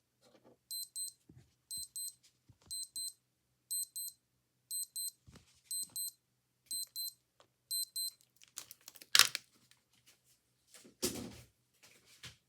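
Digital watch alarm beeping in quick pairs, about one pair a second, eight times, then stopping. Two loud noisy knocks or rustles follow, the second the loudest.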